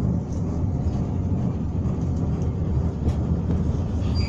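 Steady low rumble of a passenger train rolling along the track, heard from inside the carriage.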